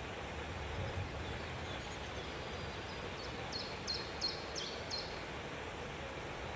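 A bird gives a quick run of about five short, high chirps a little past halfway, over a steady background hiss.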